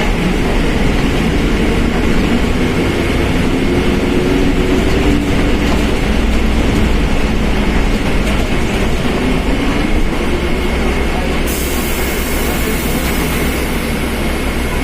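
Mercedes-Benz OF1721 BlueTec 5 bus under way, a steady running noise with a whine from the differential that rises and falls in pitch as the speed changes; the differential howls loudly. A high hiss joins in about eleven seconds in.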